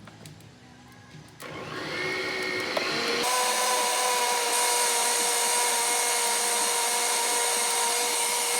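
Electric blender switched on about a second and a half in, its motor speeding up over a couple of seconds, then running steadily at full speed with a high whine while it purées a runny salsa.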